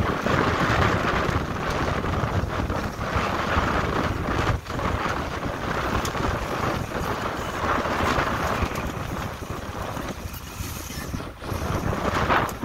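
Wind buffeting the microphone over the rush of sea water along the hull of a sailboat under way, rising and falling in gusts.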